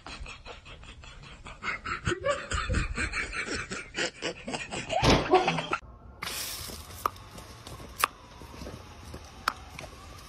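A person laughing in quick, pulsing bursts that build to a peak and break off suddenly, followed by a steady hiss with a few sharp clicks.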